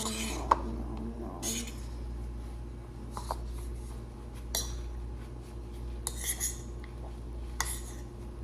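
Fork or utensil clinking and scraping on a plate now and then while eating, over a steady low hum.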